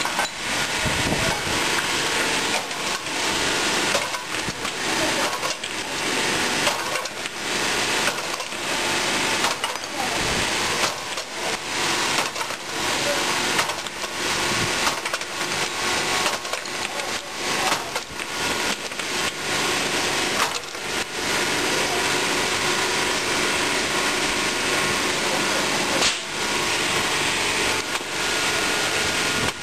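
Hydraulic stone-splitting machine running with a steady noisy drone from its power unit, broken by repeated sharp cracks and knocks as stone slabs are split and shifted on the machine. The cracks come every second or so for the first two-thirds, then the drone runs on alone with one more sharp crack near the end.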